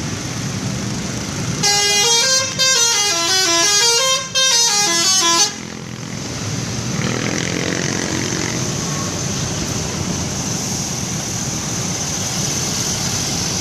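Bus telolet horn playing a fast stepped tune of short rising and falling notes for about four seconds, starting a couple of seconds in, over steady traffic and engine noise.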